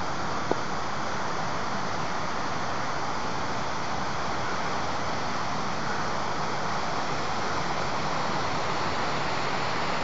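Steady, even rush of a waterfall's falling water, with a brief click about half a second in.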